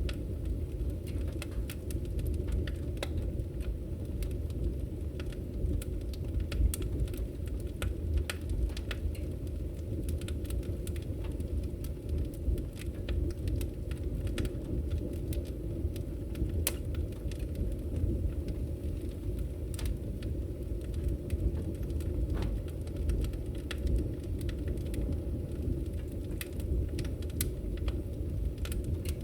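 Wood fire burning in a fireplace: a steady low rumble of flames with frequent irregular crackles and pops from the burning logs.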